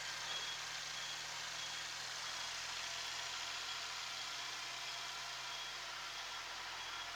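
Kubota SL28H tractor's diesel engine running steadily, with a faint high beep repeating about every 0.6 seconds from a reversing buzzer.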